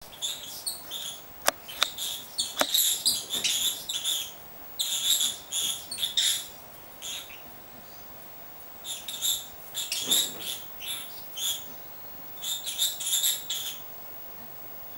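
Rosy-faced lovebird giving runs of high, squeaky chirps, in about six bursts separated by short pauses, with three sharp clicks in the first three seconds.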